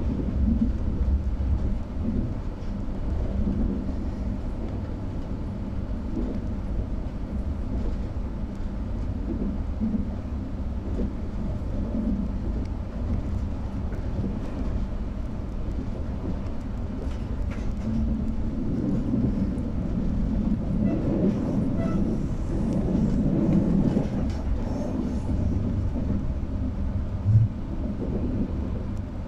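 Trenord TAF double-deck electric multiple unit running at speed, heard from inside the carriage: a steady rumble of wheels on the rails. It swells somewhat past the middle, with one short knock near the end.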